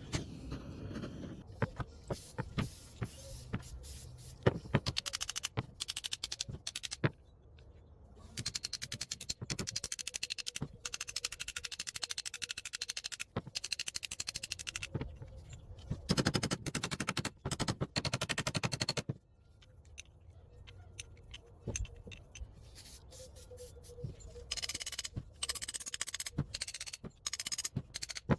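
Quick repeated scraping and scratching strokes on the rusty metal of a vintage Coes monkey wrench, coming in several runs with short pauses between them.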